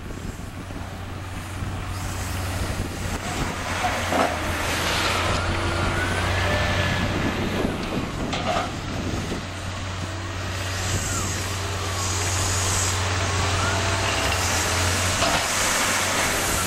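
Cat 950K wheel loader's diesel engine working under load, building up over the first few seconds, with a wavering whine above the engine note. Two sharp metallic knocks come about 4 and 8 seconds in.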